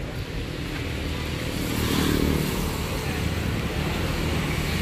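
Motorbike engine running close by, growing louder about two seconds in, over a steady street-traffic rumble.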